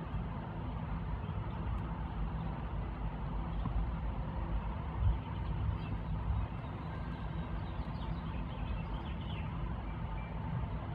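Outdoor ambience: a steady low rumble, with faint high chirps between about six and nine seconds in.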